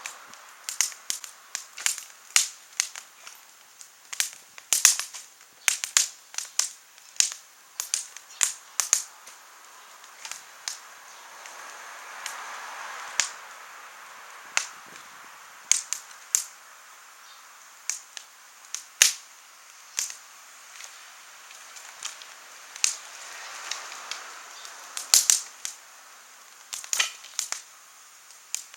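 Wood fire crackling, with sharp, irregular pops about once or twice a second and a soft hiss that swells twice.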